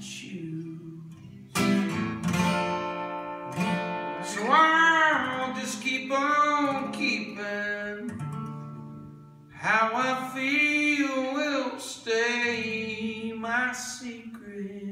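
A man singing and strumming an acoustic guitar in a live solo performance.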